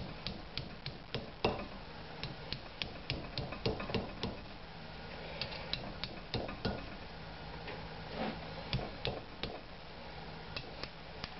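A small hammer tapping a punch in the clogged drain hole of a Mercruiser 4.3 exhaust manifold: a string of light, irregular metallic taps, about two to three a second, knocking loose the rust and scale that block the hole.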